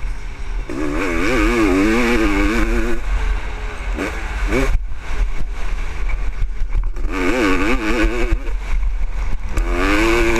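1996 Honda CR500's single-cylinder two-stroke engine pulling hard in bursts. It is on the throttle from about a second in, blips briefly near the middle, eases off for a couple of seconds, then pulls again twice, its pitch wavering as the revs change. A steady low wind rumble on the microphone runs underneath.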